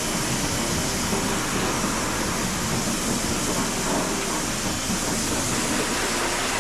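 Pressure-washer jet spraying water over a car's engine bay: a steady hiss of the spray.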